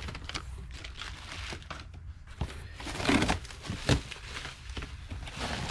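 Packaging crinkling and rustling as parts are handled and unpacked, in irregular bursts with louder crackles about three and four seconds in.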